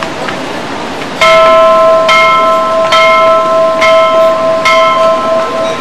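A large hanging brass temple bell, already ringing faintly, is struck five times from about a second in, a little under a second apart, each stroke ringing on into the next.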